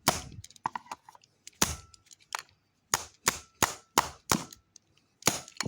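Sharp, hard knocks of a pencil striking a plastic remote control, coming in quick runs of about three a second with a short gap between runs.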